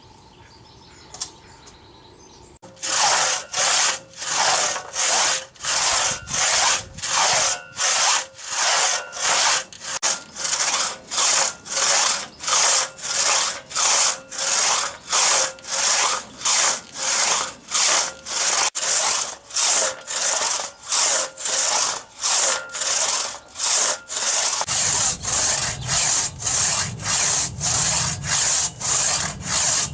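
Hand crosscut saw cutting through a eucalyptus log in steady back-and-forth strokes, about one and a half a second, starting a couple of seconds in.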